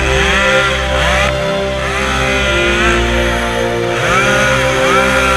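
Stihl top-handle chainsaw revving up and dropping back about six times as it cuts branches off a Douglas fir trunk.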